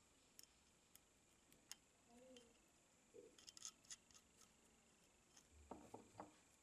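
Faint clicks and ticks of small metal parts as a nut is run onto a bolt to fix the handle to a cast-iron charcoal iron, with a few slightly louder knocks near the end.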